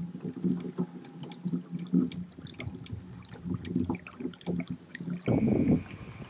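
Small waves lapping and splashing against a kayak's hull as it moves slowly along, with irregular light splashes and ticks. The wash of water grows louder about five seconds in.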